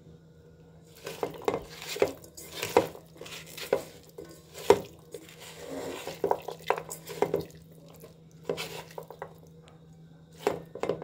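Raw chicken, onion, tomato and carrot being mixed by hand in a rice cooker's metal inner pot: irregular knocks and clatter against the pot, over a steady low hum.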